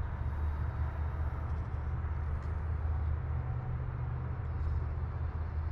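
Steady low rumble with a fainter hiss above it, even throughout with no distinct events.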